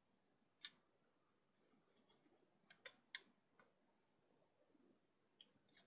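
Faint, scattered clicks and light snaps of rubber bands being stretched and looped onto the plastic pegs of a Bandaloom, about seven in all over a very quiet background.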